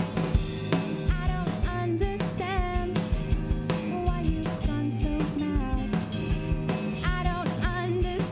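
Live rock band playing: distorted electric guitars, a drum kit with frequent hits, and a wavering sung melody over them.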